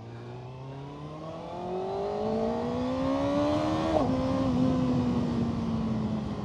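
Kawasaki ZX-6R 636 inline-four engine accelerating, its pitch rising steadily for about four seconds. About four seconds in, the pitch drops sharply at an upshift, then it eases off slowly.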